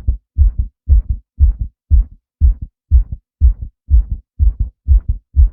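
A man's heartbeat, steady and regular at about two beats a second, each beat a double thump (lub-dub), the first louder than the second.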